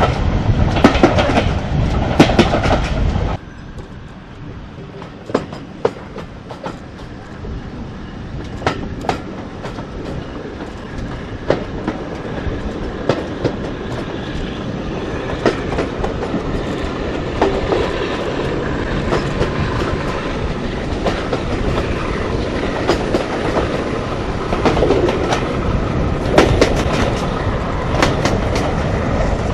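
Moving railway train heard on board, its wheels clicking over rail joints with a running rumble. The rumble drops suddenly about three seconds in, then grows steadily louder again, with scattered sharp clicks and knocks.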